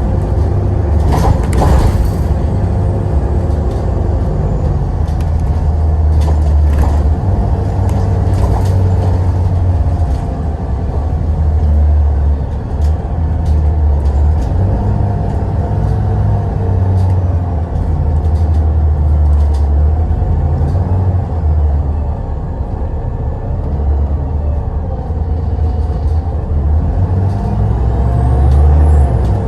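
Steady low rumble of a heavy vehicle running, with short hisses of air about a second in and again near nine seconds.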